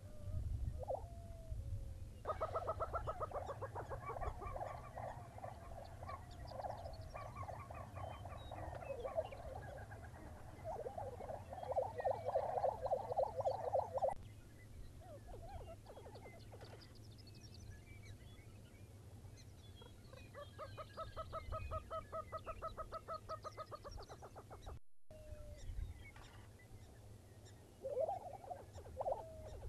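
Lesser prairie chickens calling on their lek: long, rapid stuttering trains of bubbling gobble calls from displaying males, loudest a little before the middle, with a second run later and a few short gliding calls near the start and end. A steady low rumble lies underneath.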